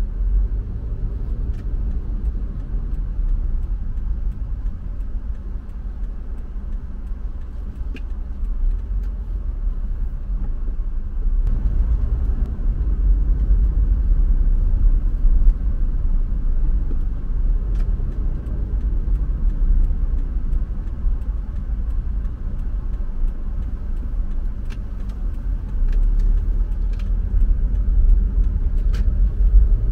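Car driving along a road: a steady low rumble of tyres and engine that gets louder about a dozen seconds in and again near the end.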